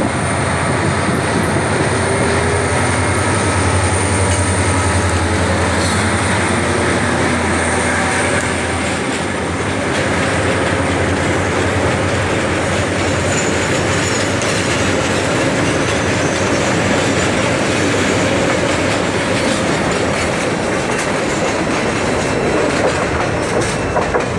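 FCCA 702 diesel locomotive passing close with a deep steady engine drone that drops away about nine seconds in, followed by a string of container flatcars rolling by, their wheels running over the rails.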